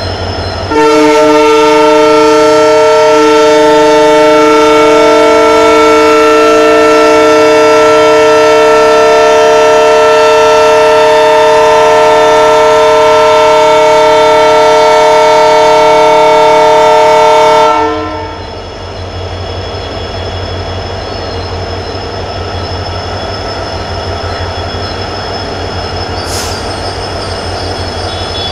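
EMD WDG4 (GT46MAC) diesel locomotive sounding its multi-tone air horn in one long, loud blast of about seventeen seconds, starting about a second in. When the horn stops, the low, pulsing rumble of its two-stroke V16 diesel engine is heard as the train pulls out, with a brief high squeak near the end.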